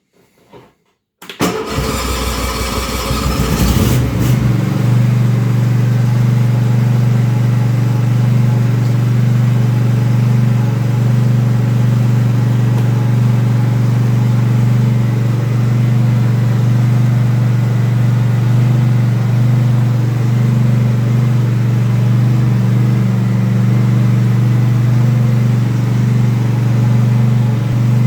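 Stihl/Viking RT 6127 ZL ride-on mower's engine being cranked by its electric starter, catching about four seconds in and then running steadily. This is the start-up test after replacing the seat safety switch.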